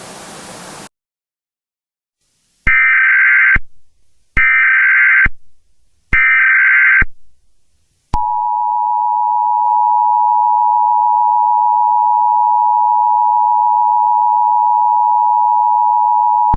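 Emergency Alert System tones: three short bursts of the SAME header's screeching data tones, each under a second, then the steady two-tone EAS attention signal sounding to the end. A brief hiss of static comes first.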